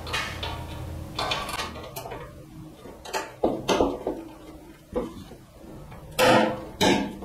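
A plastic digital volt and frequency panel meter being fitted by hand into the cutout of a metal amplifier front panel. It makes a run of short clicks, scrapes and knocks. The two loudest come near the end as the meter is pressed into place.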